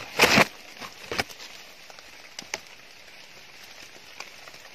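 Leaves and brush rustling against each other as the forest undergrowth is pushed through: one loud, brief rustle at the start and a smaller one about a second in, then only faint scattered crackles in the leaf litter.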